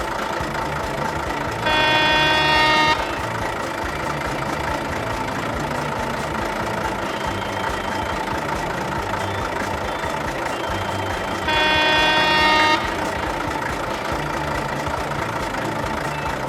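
Truck engine sound effect running steadily, with two horn honks about a second long each, roughly ten seconds apart.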